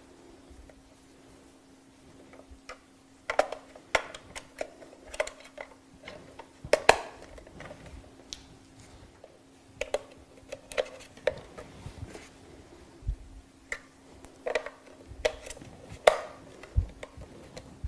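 Batteries being fitted into a plastic battery compartment: irregular sharp clicks and taps that begin about three seconds in, over a faint steady hum.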